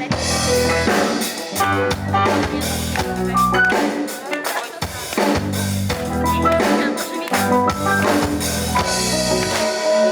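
Rock band playing an instrumental intro: a drum kit keeping a steady beat under sustained bass notes and a melody line.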